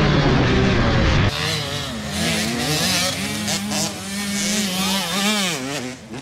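A motocross dirt bike's engine running loud at a fairly steady pitch close up. About a second in it cuts to a quieter mix of several dirt bikes on the track, their engines revving up and down as they go through the turns.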